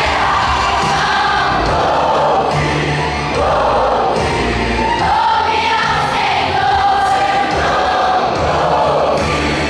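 A choir singing a gospel song, with long held notes.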